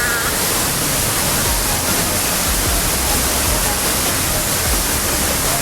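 Waterfall crashing down, a loud, steady rush of falling water that masks almost everything else.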